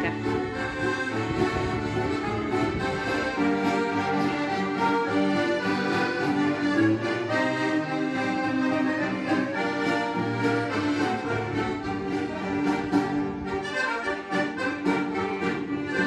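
Several piano accordions playing a tune together, with sustained chords and a steady bass line.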